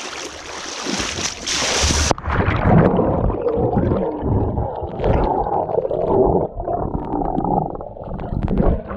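Splashing water, then about two seconds in the sound turns suddenly muffled as the action camera goes under the river surface: underwater gurgling and rumbling with bubbles rushing past, a dog swimming close by.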